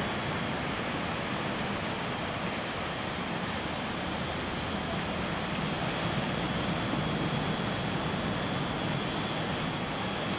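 Steady, even rushing noise of ocean surf breaking on a beach, mixed with wind.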